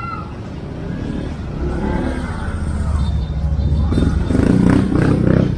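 A motorcycle engine running close by, growing steadily louder and loudest near the end before it drops off abruptly.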